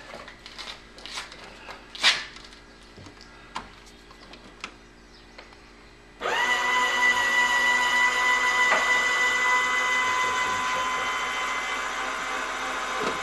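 Electric motor of a homemade person-transfer lift starting about halfway through and running steadily with a constant whine. Before it, scattered clicks and knocks from handling the lift and sling, one sharper knock about 2 seconds in.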